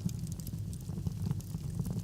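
Wood fire burning in a fireplace: a steady low rumble of the flames with frequent small crackles and pops.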